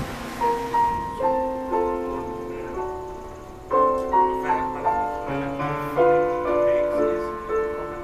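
Background piano music: a slow melody of single struck notes and chords, with a louder chord a little before the middle. The hiss of wind and sea fades out in the first second.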